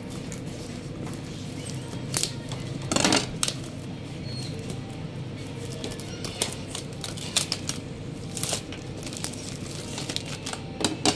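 Plastic shrink-wrap on a cardboard box being slit with a kitchen knife and torn off: short bursts of scraping, crinkling and tearing, the loudest about three seconds in, with more near the end.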